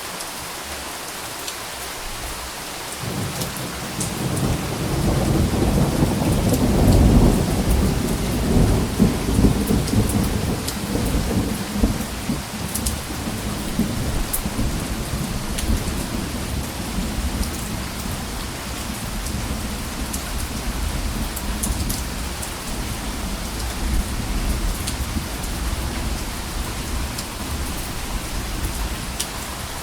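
Steady rain hissing, with scattered drops ticking. A long, deep rumble of thunder starts about three seconds in, peaks a few seconds later and slowly rolls away.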